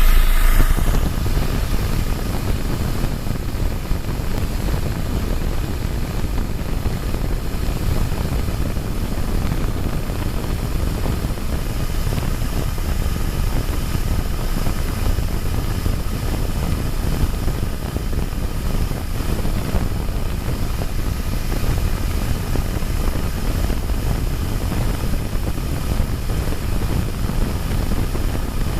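BMW 320d's four-cylinder turbodiesel engine running steadily at idle, with no revving. The owner believes its turbo seals are failing.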